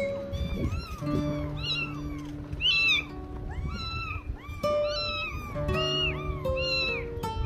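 Several young kittens meowing over and over, short high calls that rise and fall, about two a second, over background music with long held notes.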